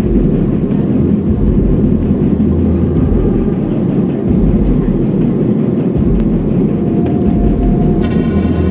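Jet airliner on its takeoff roll, heard from inside the passenger cabin: a loud, steady low rumble of the engines at takeoff power and the wheels running on the runway.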